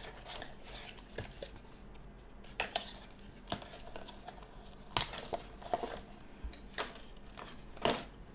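Scattered clicks and knocks of small hard plastic items being handled and set down on a table while a bike front light is unboxed, with the sharpest knock about five seconds in.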